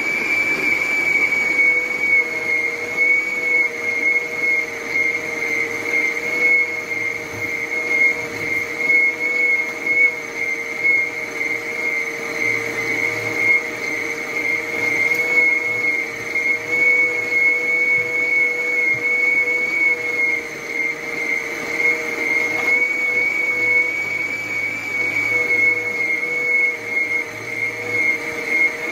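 Arno 600 W planetary stand mixer running at a steady speed, its motor giving a high, even whine as the flat beater churns cooked potatoes into mash.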